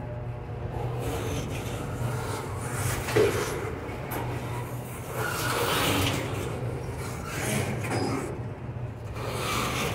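Double-stack container well cars of a freight train rolling over a short railroad bridge: steady rumble of steel wheels on rail with intermittent knocks and rattles from the cars, one sharp knock about three seconds in.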